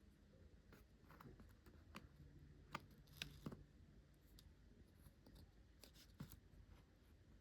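Faint scattered clicks and light scrapes of small metal parts and a precision screwdriver being handled, clustered in the first half and once more near the end.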